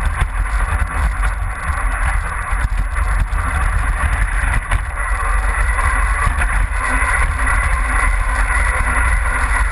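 An RC car driving, heard from a camera mounted on its body: a heavy, steady rumble and hiss of the drive and wheels running over snow and then onto a concrete driveway.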